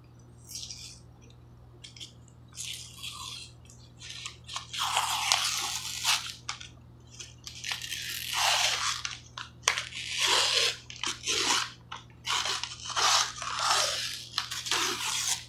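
Paper-and-foil wrapper being torn and peeled off a refrigerated dough can, crinkling and crackling in irregular bursts that grow louder from about four seconds in.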